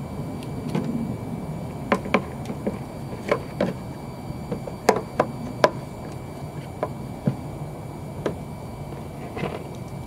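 Sharp clicks and taps of hard plastic parts being handled and snapped together on a car headlight assembly: about a dozen, bunched between two and six seconds in with a few more later, over a steady low hum.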